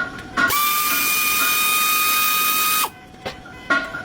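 Handheld power tool motor spinning up and running at a steady whine for about two seconds, then stopping; after a couple of short trigger bursts it starts again near the end.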